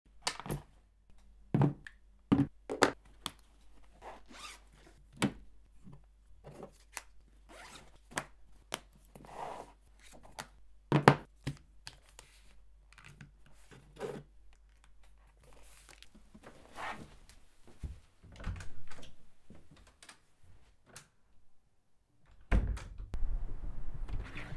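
Gear being handled and packed into a canvas shoulder bag on a desk: a long series of separate clicks, knocks and thunks, with a few longer rasping zip sounds. Near the end a louder, steady low noise sets in.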